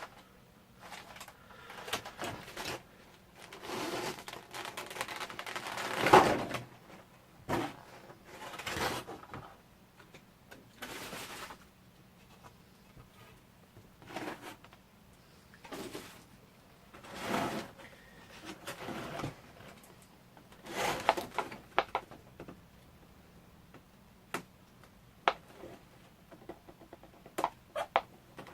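Plastic packaging and figure parts being handled and unpacked: irregular rustling and crinkling bursts with sharp clicks, with short pauses between them.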